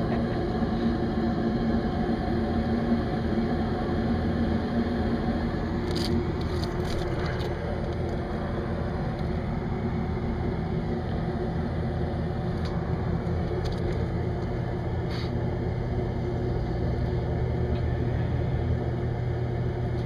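Rooftop gas-heat HVAC unit running with a steady hum and rumble, its indoor blower now driven by a newly fitted Emerson X13 motor, with a few light clicks. A deeper hum grows stronger in the last few seconds as the blower comes up to speed.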